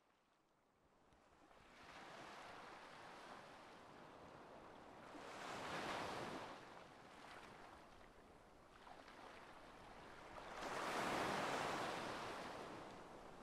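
Ocean surf: a wash of waves that builds up from very quiet in the first couple of seconds, then swells twice as waves break, about six seconds in and again around eleven seconds in.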